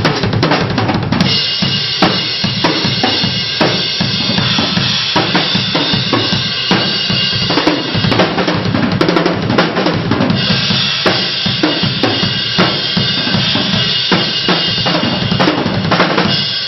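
Drum kit played as a groove: bass drum and snare under Zeus B20 bronze cymbals. The cymbal wash grows brighter and fuller about ten seconds in, and the playing stops just before the end.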